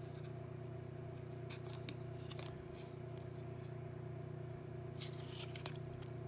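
Trading cards being handled and slid one over another: short dry rustles and clicks, a few in a cluster about a second and a half in and again near the end, over a steady low electrical hum.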